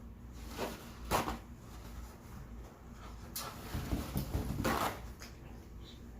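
Close-miked eating of fried chicken: a handful of short, crackly noises of chewing and handling the food, with quieter mouth sounds between.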